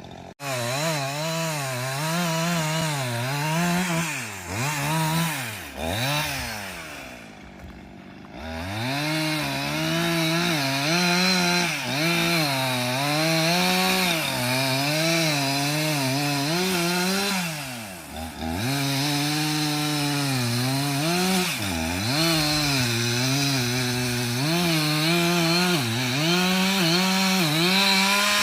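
Chainsaw running at high revs, cutting wood, its pitch wavering up and down under the load. It drops back toward idle twice, about a third of the way in and again about two-thirds through, then revs up again.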